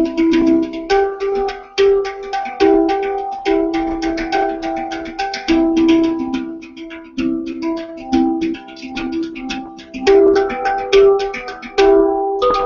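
Handpan played by hand: quick taps and struck notes, several a second, whose bell-like tones ring on and overlap in a flowing melody.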